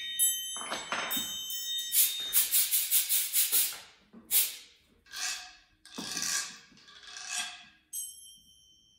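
Small hand percussion played as a string of 'magic' sounds: a run of quick jingling strikes, then four separate rattling shakes about a second apart, then one struck metal chime that rings on and fades near the end.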